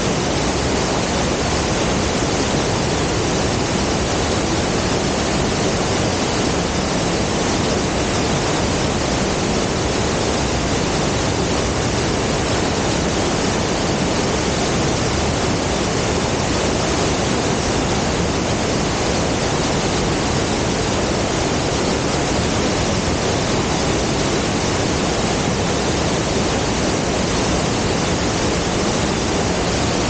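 Waterfall plunging into a rock pool: a loud, steady rush of falling water that never changes.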